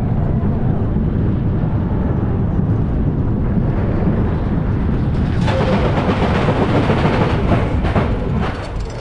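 Morgan roller coaster train rolling along the track, with heavy wind rumble on the on-board microphone. About five and a half seconds in, a harsher rattling hiss sets in as the train runs onto the final brake run toward the station, then eases near the end.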